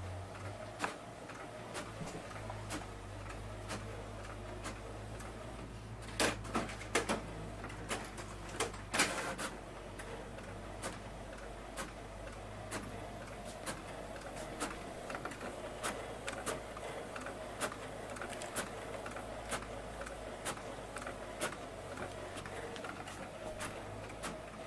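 Inkjet printer printing: the printhead carriage runs back and forth over a steady motor hum, with a click about once a second. A few louder knocks come about six to nine seconds in.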